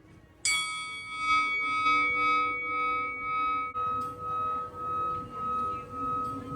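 A single struck bell-like metallic tone, sounded about half a second in, ringing on and slowly fading with a regular pulsing waver.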